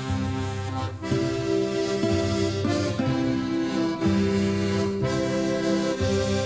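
Instrumental music: sustained chords over a bass line, changing about once a second, with no singing.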